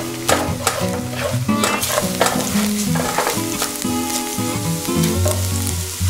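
Eggs sizzling in a hot nonstick frying pan as a spatula stirs and scrapes them into scrambled eggs, with repeated quick scraping strokes over the sizzle.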